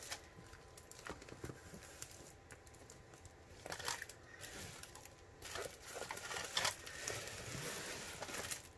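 Faint crinkling and rustling of a diamond painting canvas's clear plastic cover film as it is bunched up and smoothed down by hand, in short scattered rustles.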